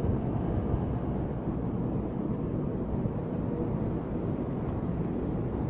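Steady low rumble with a faint hiss: the room's background noise, with no distinct events.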